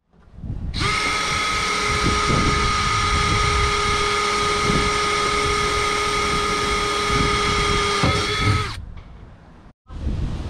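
Handheld power drill running at a constant speed with a steady high whine for about eight seconds, then stopping. After a break near the end there is a low background rumble.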